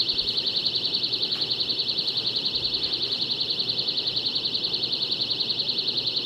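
High-pitched electronic alarm pulsing rapidly, about ten beeps a second, sounding from inside a bucket packed with fiberglass insulation and still clearly heard through it.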